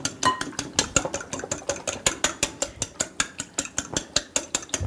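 Fork beating eggs in a ceramic bowl, clicking rapidly and evenly against the bowl at about five or six strokes a second.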